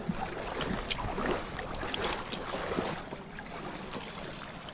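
Shallow river water splashing and lapping close by, with irregular small splashes that are busiest in the first three seconds, and wind on the microphone.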